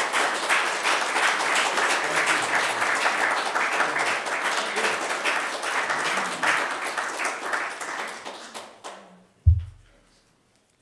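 Audience applauding, dying away about eight to nine seconds in, then one sharp low thump.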